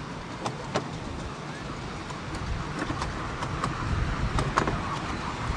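Miniature Merchant Navy class steam locomotive hauling a long train of passenger coaches toward the listener: a running rumble of wheels on track with irregular sharp clicks, growing louder as it approaches.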